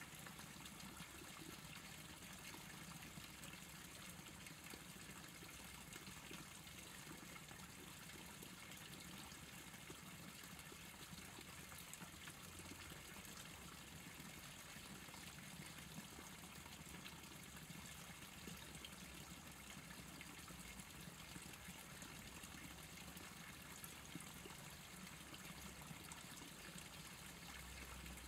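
Faint, steady trickle of a small stream, with a low steady hum underneath.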